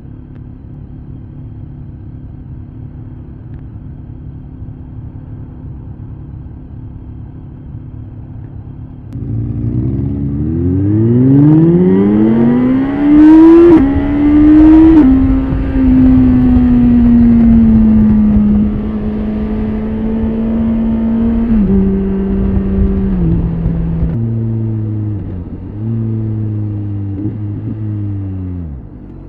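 2016 BMW K1300S's inline-four engine idling for about nine seconds, then pulling away hard: the pitch climbs steeply, with a short sharp noise at each of the first two gear changes. It then settles into a steady cruise, stepping down in pitch at further upshifts and easing off suddenly near the end.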